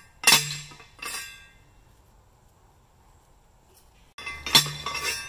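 Manual T-post driver slamming down onto a steel fence T-post: a loud metallic clank with ringing, a weaker second one about a second in, then after a pause another ringing clank near the end.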